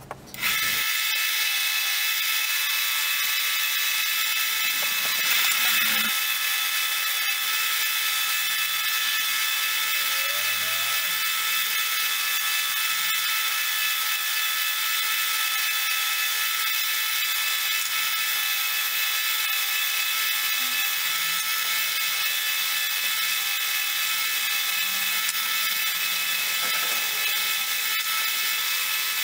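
Delta narrow-belt sander running steadily with a high whine, starting about half a second in, while steel letterpress quoins are held against the belt to sand off rust and patina.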